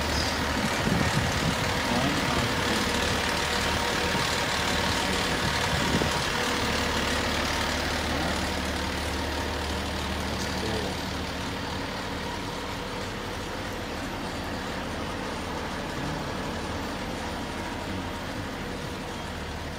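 Fire engine's diesel engine idling steadily with a low hum, growing somewhat quieter about halfway through.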